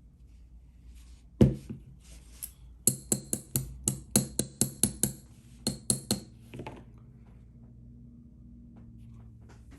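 A metal lock being knocked hard once, then tapped about a dozen times in quick succession, each sharp metallic tap ringing briefly. The tapping is to jar a stuck spring and pin out of a pin chamber.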